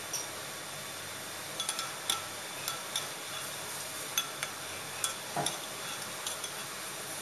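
Metal spoon stirring a milky mixture in a glass bowl, with light, irregular clinks against the glass about once or twice a second.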